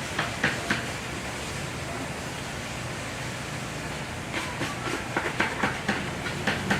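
Stiff scrub brush worked back and forth over soapy, wet car carpet in quick rhythmic strokes, about four a second. The strokes stop for a few seconds in the middle and resume, over a steady hiss.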